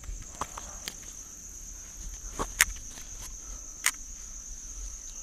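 Steady high-pitched chirring of night insects such as crickets, with a few sharp clicks over it, the loudest about two and a half seconds in and again near four seconds.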